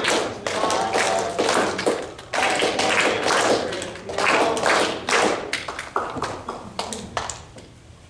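A congregation applauding, many hands clapping in a dense patter that dies away near the end.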